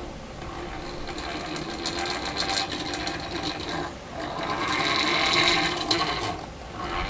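Forge blower whirring as it is run, swelling and easing several times, loudest a little past the middle, as it pushes air into the coal forge.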